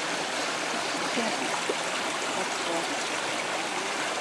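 A mountain creek running steadily, a continuous rush of flowing water.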